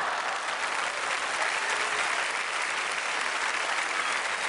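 Live theatre audience applauding steadily.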